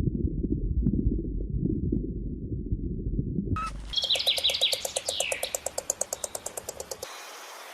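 Bird calls in two parts: a low, pulsing rumble for about three and a half seconds, then a rapid series of sharp chattering notes, about eight a second, which stops about seven seconds in.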